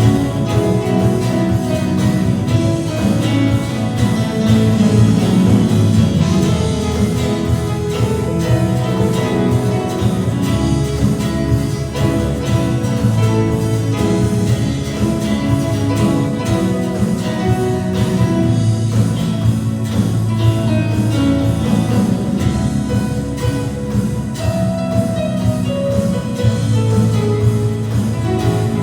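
Worship band playing a song through a church sound system, with guitar prominent over a full, steady accompaniment.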